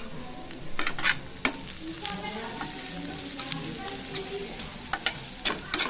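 Diced vegetables (carrots, peas, capsicum and onion) frying in oil in a pan with a steady sizzle, while a spatula stirs them, scraping and clicking against the pan several times.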